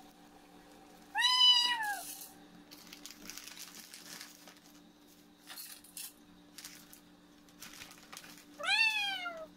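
A cat meowing twice, each a single call that rises then falls in pitch, about seven seconds apart.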